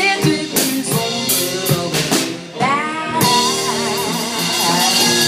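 Live rock band with drum kit, guitar and a woman singing. Drum strokes and sung notes run to about three seconds in. Then the band holds a final chord, with crashing cymbals ringing and the voice holding a note, as the song ends.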